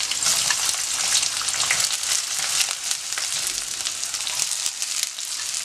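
Sliced onion, green capsicum, carrot and cabbage sizzling and crackling as they go into hot oil in a kadai: a steady, dense sizzle that cuts off suddenly at the end.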